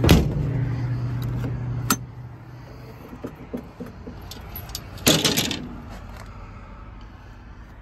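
Sharp knocks and light metallic clinks and rattles, with a steady low hum that stops about three seconds in.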